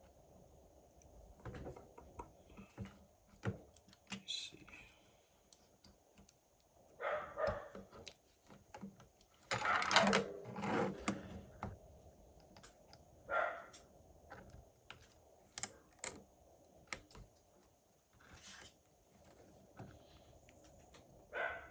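Scattered small clicks, taps and rustles of tools and small parts being handled at a phone repair bench, with a longer cluster of rustling and clicking about ten seconds in.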